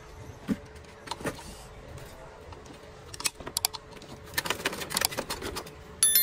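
Metal clicking and clinking of a T-handle wrench working the bolts on top of a submersible sewage pump, in quick clusters about halfway through and later on. Near the end comes a sharp metallic clang that rings briefly.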